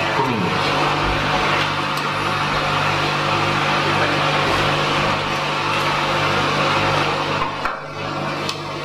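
A steady, loud drone on the recording: an even hiss with a low hum underneath, briefly dipping in level near the end. This is the background drone that heavily marred the recording and was only partly filtered out.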